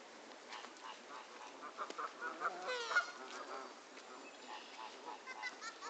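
Canada geese honking: a quick run of short honks, then a longer, louder call that bends in pitch about three seconds in, and more short honks near the end.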